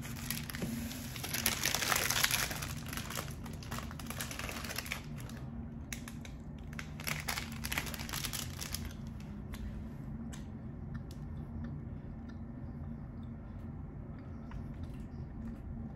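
Plastic snack wrappers crinkling as they are handled, in two main spells near the start and about halfway through, with scattered light clicks in between.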